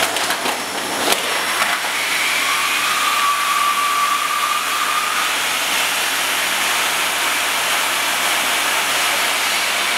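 Vacuum cleaner running steadily, sucking air through a cut-down plastic bottle taped to its hose and held over a compact camera's lens opening, to draw dust out of a sticking zoom barrel and off the sensor. A thin whistling tone comes in about two and a half seconds in and fades out around five seconds. There are a couple of knocks near the start as the hose is handled.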